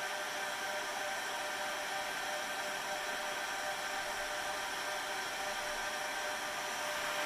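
Cooling fans of a Dell PowerEdge R630 1U rack server running at a steady speed: an even whir with several steady high tones over it.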